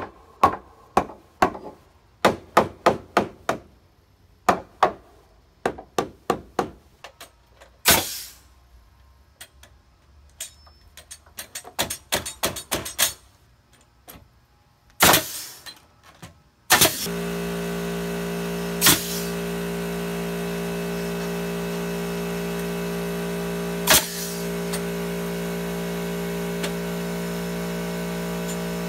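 Hammer striking pressure-treated lumber in quick runs of blows as blocking is knocked into place between deck joists, followed by shots from a pneumatic coil nailer. About halfway through, an air compressor starts up with a steady hum that runs almost to the end, with two more nailer shots over it.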